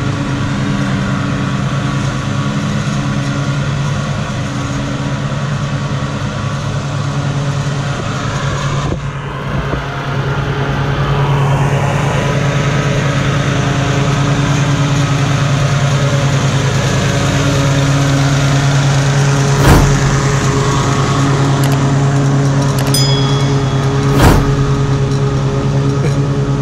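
Walk-behind gasoline lawn mower engine running steadily while mowing, growing louder about halfway through. Two sharp knocks come later, a few seconds apart.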